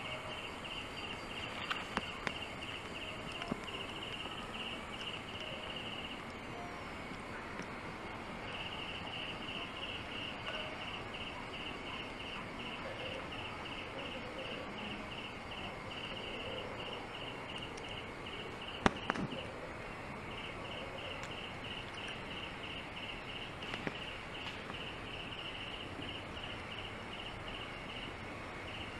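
Insect chirping in a steady rhythm of about three chirps a second, stopping twice for a couple of seconds. A few sharp clicks or knocks stand out, the loudest about two-thirds of the way through.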